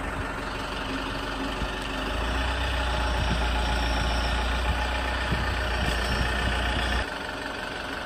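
Minibus engine idling steadily. A deeper low rumble comes in about two seconds in and cuts off abruptly about a second before the end.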